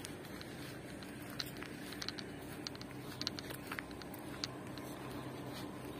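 Faint, steady outdoor background with scattered light clicks and ticks.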